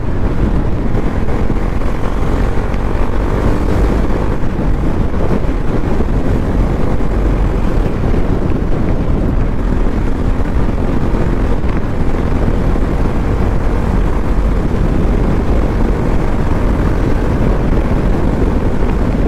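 Bajaj Pulsar NS200's single-cylinder engine running steadily as the motorcycle rides at speed, mixed with wind noise on the handlebar camera's microphone.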